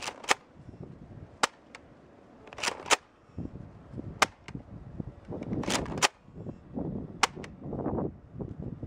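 Nerf Vortex Vigilon disk blaster being primed and fired over and over: a string of sharp plastic snaps, roughly one every second or so. Gusts of wind buffet the microphone with low rushing noise in between.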